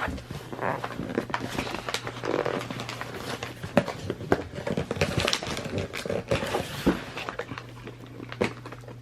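Paper wrapping and a gift bag rustling and crinkling in irregular bursts as presents are unwrapped, over a faint steady low hum.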